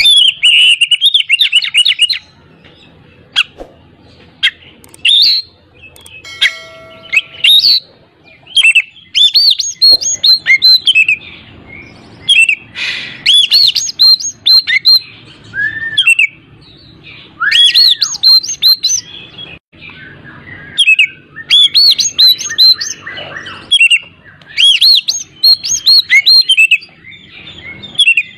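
Oriental magpie-robin (kacer) singing loudly in bursts of quick, high, repeated and sliding notes, broken by short pauses.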